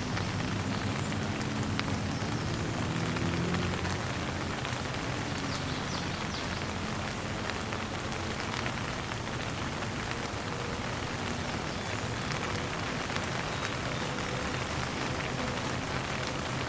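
Steady rain falling, with scattered drops ticking on a surface over a low rumble.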